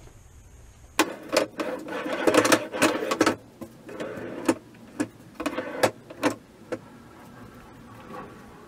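Sliding barn-door hardware on a wooden cabinet: steel rollers rolling along the flat black steel track as the doors are pushed back and forth, with a series of sharp knocks and rattles. The loudest stretch comes about two to three seconds in, and the sound dies away after about seven seconds.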